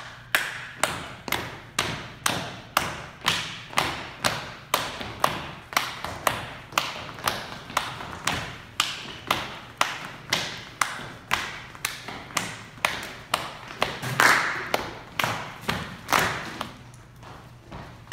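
A group of people clapping in time to a steady beat, about two a second, with thuds of feet on the floor; the beat is loudest about two-thirds of the way through.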